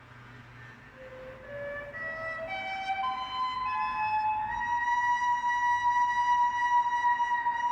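A rising run of pitched tones stepping up like a scale, each note overlapping the next, ending on a long held high note.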